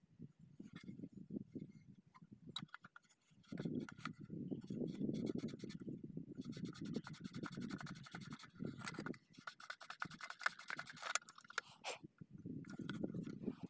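Scraping and rubbing on the brass slip rings of a center pivot irrigation collector ring as they are cleaned by hand: quick runs of fine scratchy clicks, thickest in the middle, over a low rumble.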